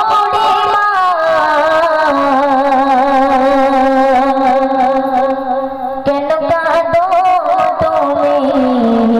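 Young girl singing a Bengali gojol (Islamic devotional song) into a microphone, in long held, ornamented notes that step down in pitch.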